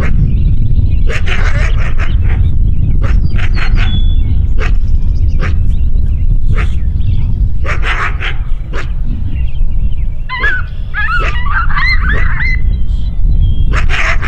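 Coyote barking and yipping in short separate calls, with a run of wavering, rising-and-falling yips about ten seconds in. A steady low rumble runs underneath.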